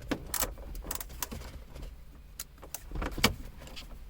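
Scattered light clicks and taps of a screwdriver with a T20 Torx bit being worked into the screws inside a dashboard air-vent opening, metal knocking on metal and plastic; the sharpest tap comes about three seconds in.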